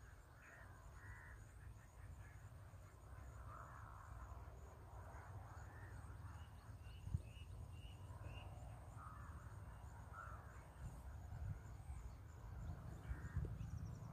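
Faint outdoor ambience: birds calling on and off, with a quick run of about six short high notes midway, over a steady low rumble. One sharp click comes about seven seconds in.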